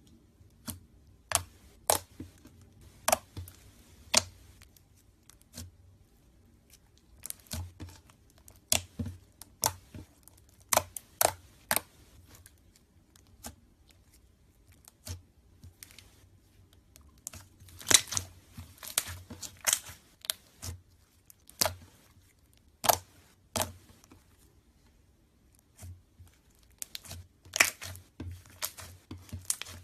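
Slime being squeezed and stretched by hand, giving irregular sharp pops and crackles, with a dense run of crackling a little over halfway through.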